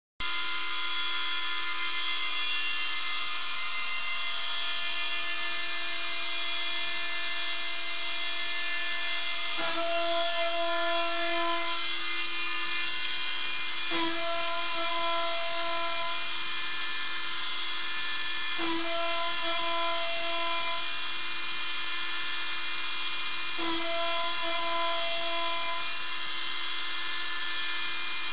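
CNC router spindle running at a steady high whine while milling a small pulley. From about ten seconds in, the tone shifts about every four and a half seconds, with a higher note added for a couple of seconds each time, as the cutter works through repeated passes.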